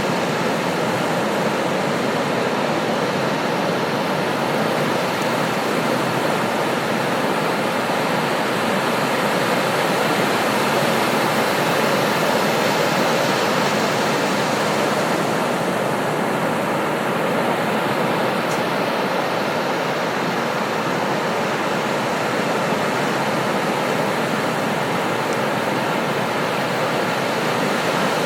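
Ocean surf breaking on a beach: a steady roar of waves, with no single wave standing out.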